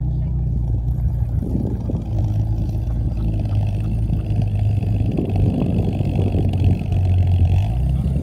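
Classic Aston Martin's engine running as the car creeps slowly across grass, a steady low rumble that swells slightly now and then.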